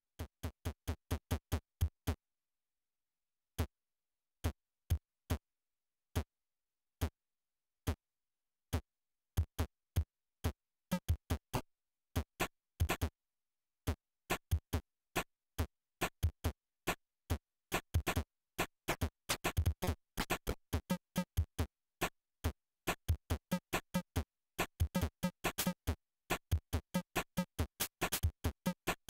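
Teenage Engineering PO-128 Mega Man pocket operator playing an electronic beat. It opens with a quick run of hits, then single hits about one a second, and from about the middle builds into a dense drum-machine pattern with synth notes.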